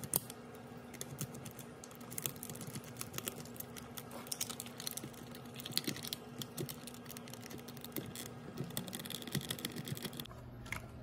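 Small precision screwdriver backing screws out of a plastic toy robot housing: a run of light, irregular clicks and ticks of the bit in the screw heads and of the plastic shell being handled.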